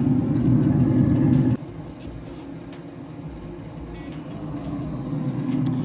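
A loud, steady motor hum that cuts off suddenly about one and a half seconds in, leaving a quieter rushing noise that slowly swells.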